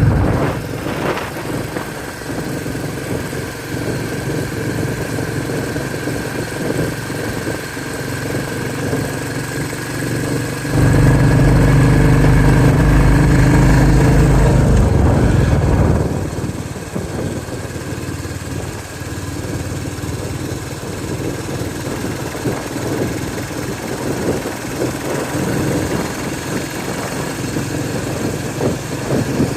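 Royal Enfield Bullet 350 motorcycle's single-cylinder engine running steadily as the bike is ridden; it grows much louder for about five seconds midway, then settles back.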